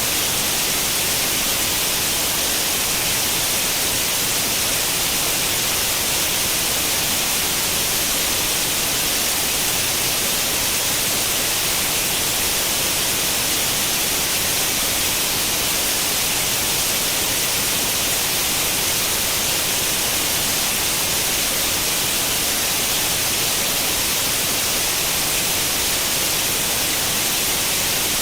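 Steady white-noise hiss imitating the static of an old cathode-ray-tube television tuned to no channel, even and unchanging, strongest in the high frequencies.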